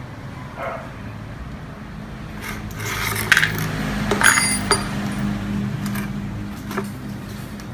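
Steel bolts and a socket wrench clinking as they are set down on a tile floor: a handful of sharp clinks about halfway through, one with a short metallic ring, over a steady low hum.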